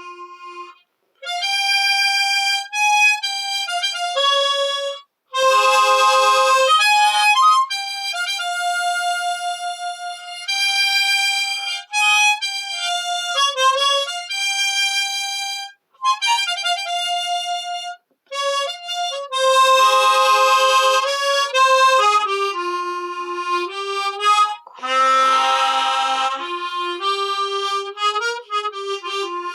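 Solo harmonica playing a slow, sentimental melody in phrases separated by short breaths, with fuller chords sounded now and then.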